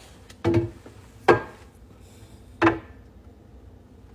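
Three knocks of containers being set down on refrigerator shelves, the second one the sharpest and loudest.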